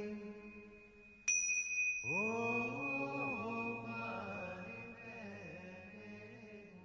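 A voice chanting long, slow notes that bend in pitch and slowly fade. A bell is struck once about a second in and left ringing.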